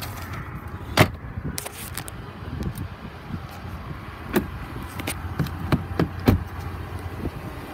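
A series of sharp clicks and knocks from a pickup truck's glove box and door being handled, the loudest about a second in, over a steady low hum.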